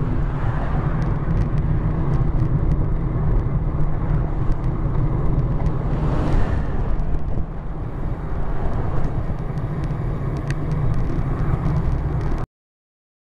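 Wind rumbling over a bicycle camera's microphone while riding along a road. About six seconds in a vehicle passes with a brief rush of tyre and air noise. The sound cuts off suddenly near the end.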